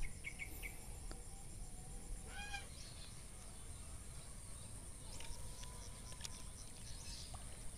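Quiet outdoor ambience with a brief distant bird call about two and a half seconds in and a few short high chirps near the start.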